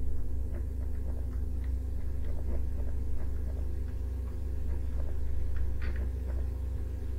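Steady low electrical hum with faint, scattered light ticks of a stylus writing on a pen tablet.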